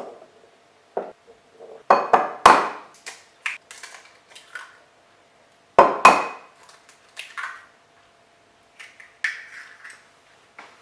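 Kitchen utensils and dishes clattering: a series of knocks and clinks, the loudest about two and six seconds in, over a faint steady hum.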